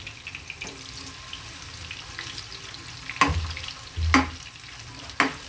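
Sliced onions frying in hot oil in a nonstick frying pan: a steady sizzle. About three seconds in, a metal spatula starts stirring them, scraping and knocking against the pan three times.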